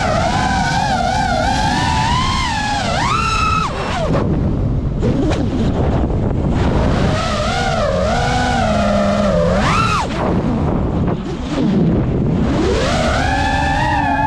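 Brushless motors and propellers of a GEPRC Mark5 5-inch FPV quadcopter, a whining hum whose pitch rises and falls with the throttle over a constant rush of prop wash and wind. The pitch climbs sharply and drops off twice, at about four and about ten seconds in, then rises again near the end.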